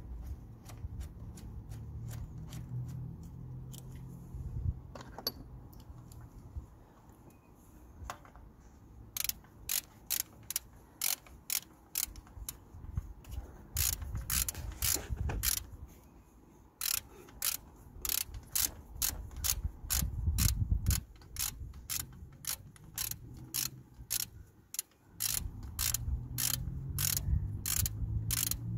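Hand socket ratchet clicking as a thermostat housing bolt is wound in. A few scattered clicks come first, then from about nine seconds in a steady run of about two clicks a second.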